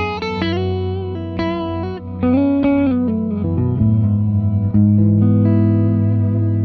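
Ibanez electric guitar played through a sostenuto freeze pedal: picked single notes ring out over a steady held drone of frozen earlier notes, and the held notes shift to new ones about four seconds in.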